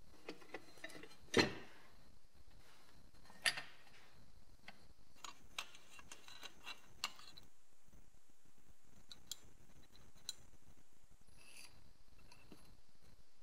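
Scattered clicks and light knocks of metal parts being handled and lifted out of an old sheet-metal scale case, the loudest knock about one and a half seconds in and a sharper click about two seconds later.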